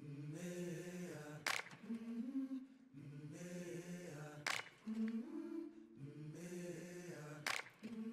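Quiet intro music: sustained, choir-like wordless notes moving in a slow phrase that repeats about every three seconds, with a sharp percussive hit once in each phrase, three times in all.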